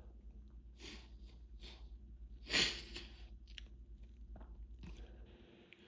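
Short sniffles and breathing noises from a person with hay fever, with one sharp, loud sneeze about two and a half seconds in.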